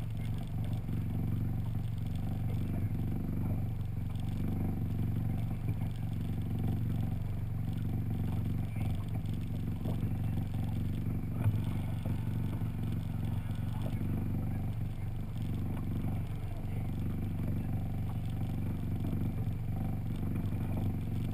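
A skiff's motor running at a low, steady speed, an even hum, with one sharp knock about halfway through.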